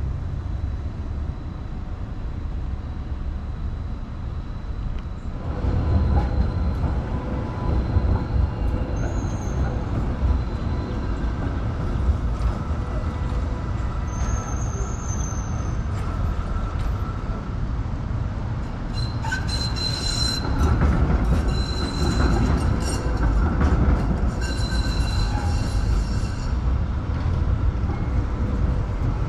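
Melbourne tram running on the St Kilda Road tracks, its low rumble growing louder about five seconds in, with high-pitched wheel squeal on the rails during the latter half.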